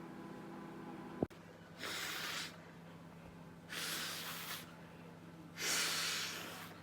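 A microwave oven's running hum stops with a sharp click about a second in. Then come loud breaths close to the microphone, three of them, each under a second long and about two seconds apart.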